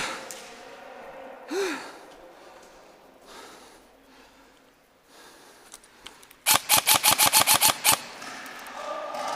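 Airsoft electric rifle firing a full-auto burst of about a dozen rapid shots, lasting about a second and a half, near the end.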